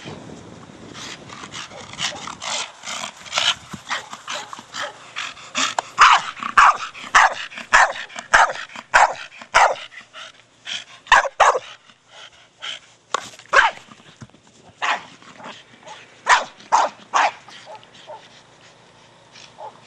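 Staffordshire Bull Terrier barking at play with his ball: a long run of short barks, two or three a second, dense through the middle and tailing off near the end.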